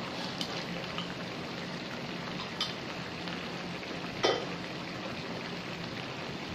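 Chili and onion spice paste, thinned with fish curry powder mixed with water, sizzling and bubbling in oil in a frying pan. A few sharp clicks sound over it, the loudest about four seconds in.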